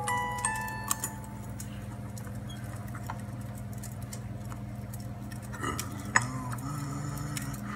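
A music box's last plucked notes ring out in the first second, then soft, irregular crackling and ticking from a wood fire over a steady low hum.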